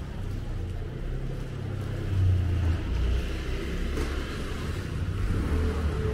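Street ambience dominated by a low rumble, which swells about two seconds in.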